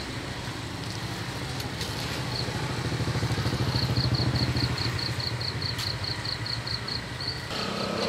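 A small motorcycle engine running steadily, growing louder toward the middle and then easing off. A high chirp repeats evenly about four times a second over it.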